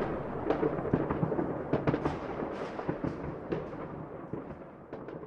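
Fireworks crackling and popping over a low rumble, many sharp cracks at uneven intervals, fading out steadily. This is a stock fireworks sound effect laid over the footage.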